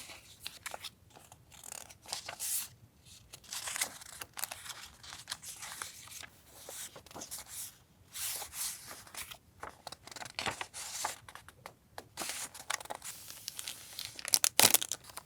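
Stationery packaging being handled and torn open: irregular rustling and tearing of paper and wrappers, with a quick run of sharp crackles near the end.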